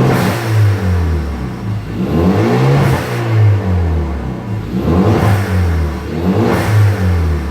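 Turbocharged car engine being revved about four times in quick succession, the pitch rising and falling with each blip. A short hiss at several of the revs is the newly fitted Turbosmart Kompact blow-off valve venting on throttle lift, which is faint.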